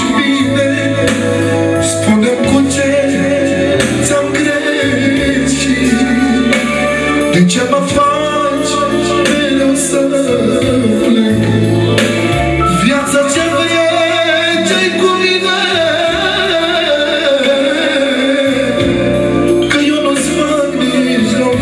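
Live manele music: a male singer sings through a microphone and PA over a small band, with the violin bowing, a guitar, and a keyboard carrying a stepping bass line.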